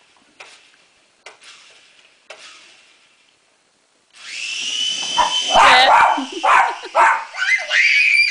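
A schipperke barking repeatedly and excitedly, starting about four seconds in, over a steady high whine from a small toy RC helicopter's motor. Before that there are only a few faint clicks.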